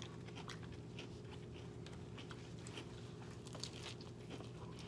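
Close-miked crunching and chewing of lettuce wraps filled with raw carrot sticks: short, irregular crisp crunches over a steady low hum.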